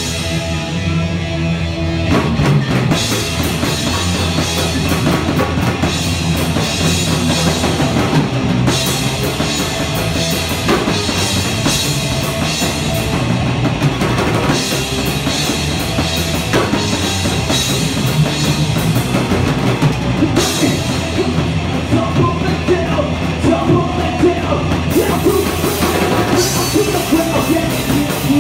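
Live rock band playing: a quieter intro of low sustained notes, then the drum kit and cymbals come in about two seconds in and the full band plays on.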